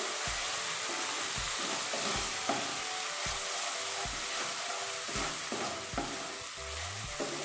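Onion, ginger-garlic and ground-spice paste sizzling in oil in a non-stick wok, with a wooden spatula stirring and scraping it in repeated strokes. The masala is being fried with a splash of water.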